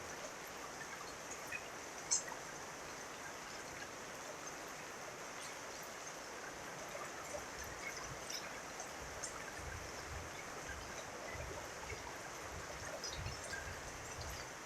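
Steady rain falling, an even hiss with scattered drip ticks and one sharp tick about two seconds in. Low, irregular thumps come in during the second half.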